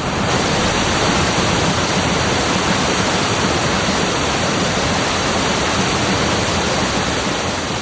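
Monsoon-swollen mountain torrents and waterfalls pouring off a high plateau, a loud, steady roar of rushing water.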